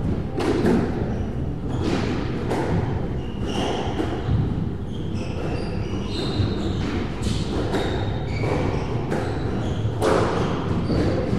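Repeated thuds of a squash ball striking walls and floor, roughly one every half second or so, mixed with short high squeaks of court shoes on the wooden floor.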